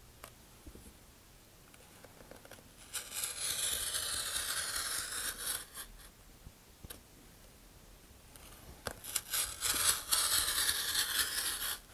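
Hobby knife blade scraping as it cuts into a thick heavy-paper rocket body tube, drawn along a metal angle guide. There are two long cutting strokes, the first about three seconds in and the second near the end, with a few light clicks of the blade between them.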